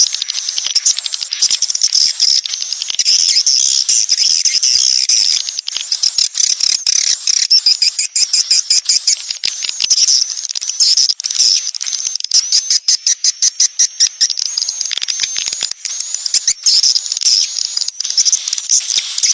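Swiftlet lure call: dense, rapid high-pitched chirping and twittering of swiftlets, with fast clicking throughout. It is a 'sedot anakan' track, played in swiftlet houses to draw young swiftlets in.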